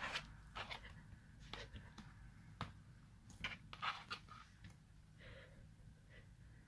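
Scattered soft clicks and rustles of a hand stroking a cat and rubbing a fleece blanket, with taps on a laptop keyboard about four seconds in, over a faint low hum.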